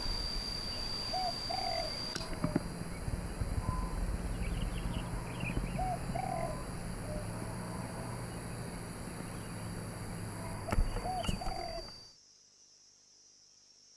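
Spotted dove cooing: three short coo phrases about five seconds apart, over a steady high-pitched insect drone and a few faint chirps from other birds. The sound drops away abruptly near the end.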